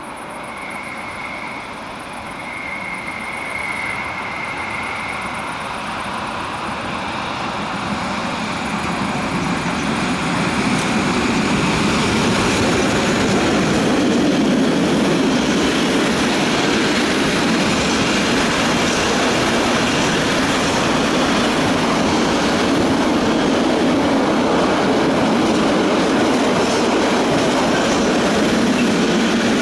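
Rhaetian Railway freight train approaching round a curve and rolling past. A high, thin wheel squeal comes and goes in the first few seconds. Then the rumble and clickety-clack of the freight wagons on the rails grows louder over about ten seconds and stays steady as the wagons pass.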